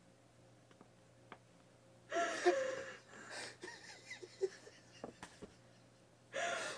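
Near silence at first, then about two seconds in a wheezing, breathless laugh with gasps, followed by scattered softer laughing sounds and a fresh burst of laughter near the end.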